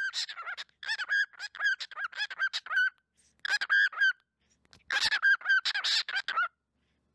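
Cinnamon cockatiel chattering right at the microphone in rapid strings of short, shrill chirps. There are four bouts with brief pauses between them.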